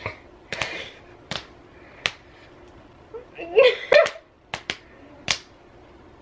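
Fists slapping onto open palms in rock-paper-scissors counts: a run of sharp smacks about two-thirds of a second apart. A burst of girls' laughter comes about three and a half seconds in, followed by a few more quick slaps.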